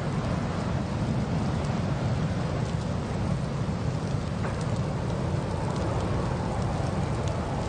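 A car driving through a winter storm: a steady low rumble of road and wind noise, with faint scattered ticks.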